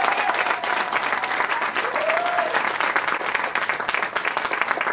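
Audience applauding steadily. A single voice calls out once, with a rising-and-falling pitch, about two seconds in.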